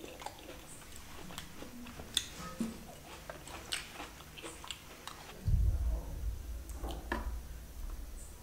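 Close-miked chewing and wet mouth sounds of someone eating a bite of chicken curry and roti, full of small sharp clicks and smacks. From about five and a half seconds in, a low rumble sets in under the clicks.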